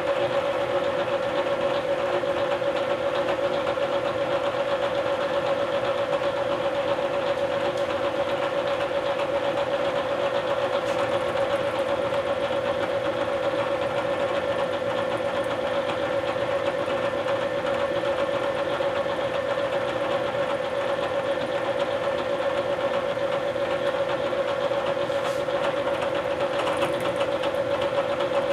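Bridgeport vertical milling machine running with its end mill cutting aluminum as the table is fed by hand: a steady, even whine.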